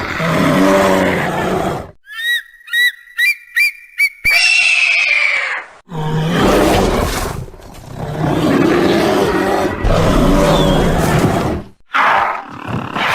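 Kaiju monster roar sound effects: a long, rough, growling roar, then five short high-pitched chirping calls about two seconds in, a screech, and two more long roars, with a shorter cry near the end.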